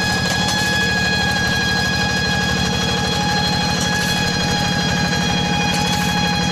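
Rice-field tractor engine running steadily with rapid even chugging, and over it a steady high-pitched whine, the 'nging' sound.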